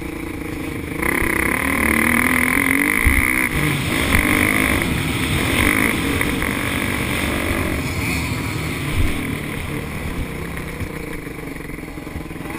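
Kawasaki KX125 two-stroke dirt bike engine heard from on board at riding speed, revving up and down through the gears. It gets louder about a second in as the throttle opens.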